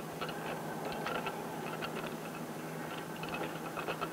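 Old film soundtrack between lines of narration: a steady low hum and hiss with scattered faint ticks and crackle.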